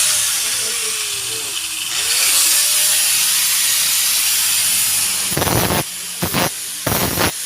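Welding on the new exhaust pipe and muffler: a steady frying hiss of the arc, then short bursts of welding from about five seconds in.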